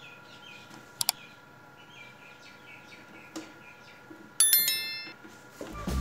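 A bright bell ding sound effect at about four and a half seconds, the loudest sound, with a quick double click a second in. Birds chirp faintly in the background, and music comes in just before the end.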